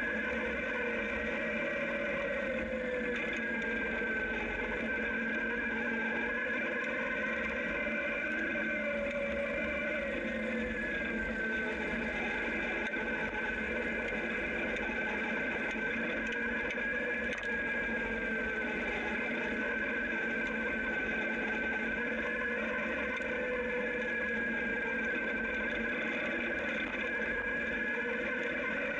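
Zero DSR electric motorcycle under way, its motor and drive whining with a pitch that slowly rises and falls with speed, over steady tyre noise on a gravel road.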